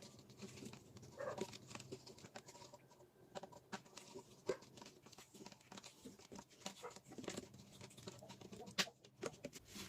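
Faint rustling, clicks and taps of hands wrapping adhesive tape around the joint of a rubber washing-machine drain hose.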